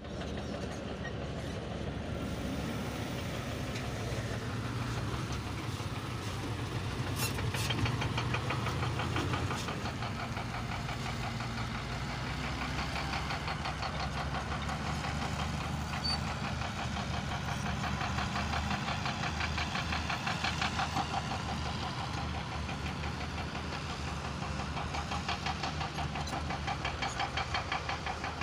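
Earthmoving machinery's diesel engines running steadily at work, with a rapid knocking clatter that comes in about halfway through and pulses harder near the end.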